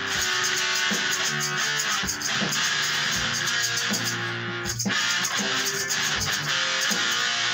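Background music led by plucked guitar, with steady sustained notes.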